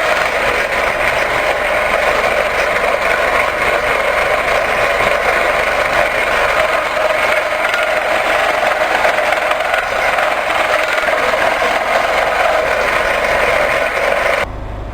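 A power tool running steadily, switched off abruptly near the end.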